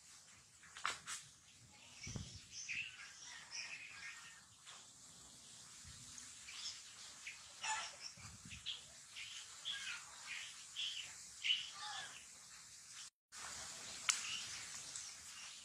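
Many short, high-pitched chirping calls come in quick succession, fairly faint, with a brief dead dropout about thirteen seconds in.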